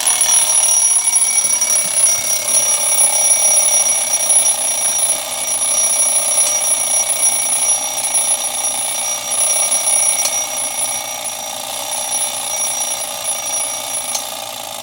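Vintage Gabriel (Robertshaw Lux) wind-up twin-bell alarm clock going off: the hammer rings the bells in a continuous metallic ringing that starts suddenly and eases a little in level in the later seconds.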